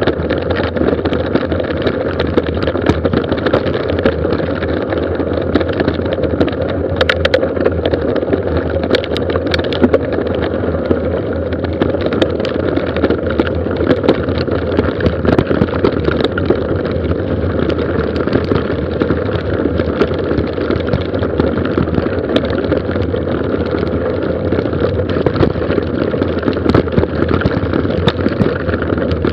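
Mountain bike descending a gravel road at speed: a steady rumble of tyres on loose gravel with frequent rattles and clatters from the bike.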